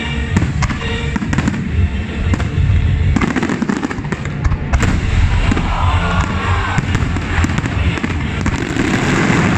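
Aerial fireworks display going off in quick succession, a dense run of booming bursts and sharp crackling bangs with no pause.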